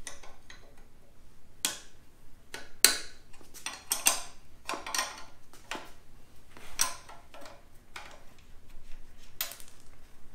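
A wrench clinking on the steel bolts and bracket of a go-kart's rear brake caliper as the caliper is unbolted: irregular metallic clinks and taps, the sharpest about three seconds in.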